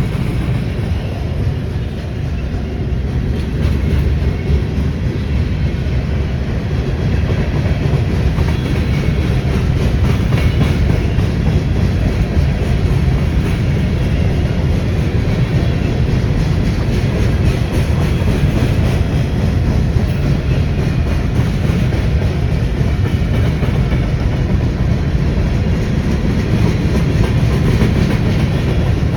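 A freight train of oil tank cars rolling past: a steady, loud rumble of steel wheels on the rails with a clickety-clack over the rail joints.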